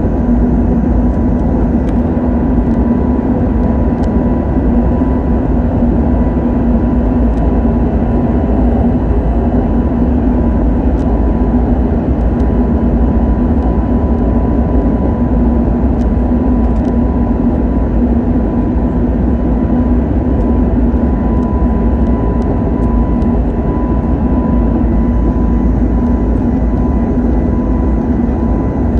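Jet engine of an Airbus A320 heard inside the cabin next to the engine in flight: a steady loud rush with a steady low hum and a fainter, higher steady tone over it.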